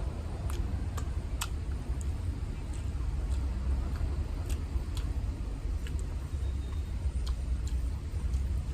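Eating noises: scattered sharp clicks, roughly one a second and irregular, over a steady low background rumble.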